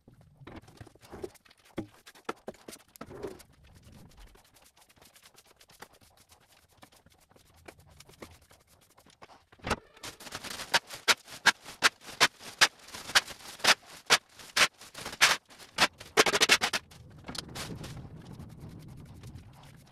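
Wood shavings being swept up off a concrete floor: a run of brisk bristle strokes, about two a second, for several seconds in the second half. Before it come scattered light clicks and knocks.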